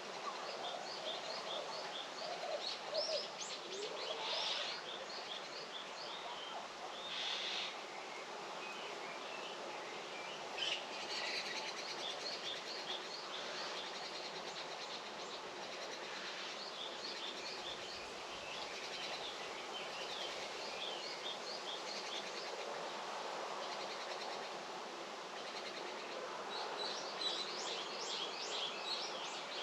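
Small birds singing in runs of quick, repeated high chirps over a steady outdoor background hiss.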